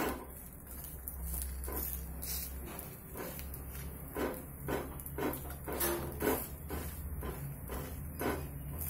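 Steel spatula patting and pressing a thick wheat ada dosa on an iron tawa: about a dozen soft, dull taps at uneven intervals, over a low steady hum.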